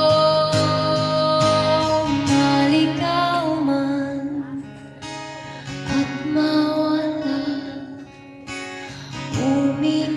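Music: a song led by strummed acoustic guitar, with a voice singing.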